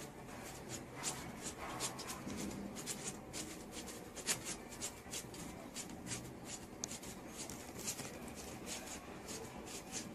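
A small terrier's paws scratching and rustling on a fabric bedspread as it scrabbles about: a quick, irregular run of scratchy ticks.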